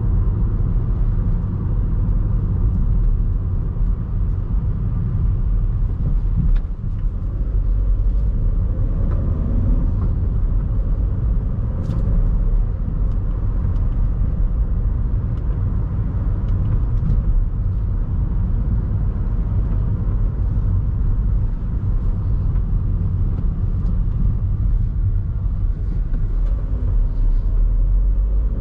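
Audi A1's 1.6 TDI four-cylinder diesel engine idling steadily, a low even rumble with no revving.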